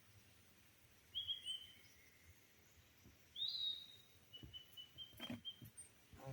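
Birds calling: a short two-note chirp about a second in, a louder rising call about halfway through, then a quick run of short, evenly spaced notes. A few soft knocks or rustles come near the end.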